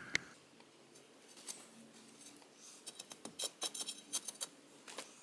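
Faint scattered clicks and light taps of a steel digging bar working into sand and gravel, thickening into a quick cluster about three seconds in.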